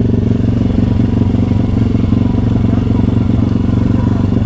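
Small single-cylinder motorbike engine idling steadily and loudly, with a fast, even firing pulse and no revving.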